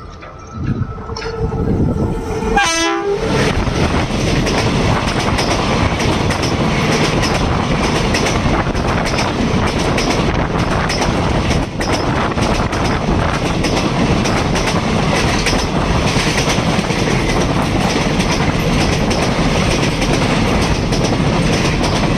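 A passenger train sounds its horn for about three seconds at the start, then passes close by, the wheels on the rails making a loud, steady rattling rumble that carries on to the end.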